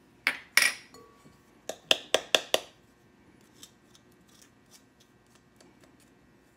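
Handheld nutmeg grinder grating whole nutmeg over a mixing bowl: two sharp clicks early, a quick run of about five clicks around two seconds in, then faint scattered ticks.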